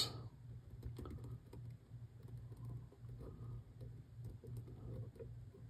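Faint, scattered light ticks over a low steady hum, while a soldering iron is held on a solder joint between a wire and a model-railroad rail.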